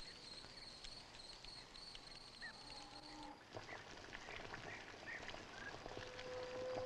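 Crickets chirring steadily, stopping abruptly about halfway through, followed by faint, scattered short animal calls.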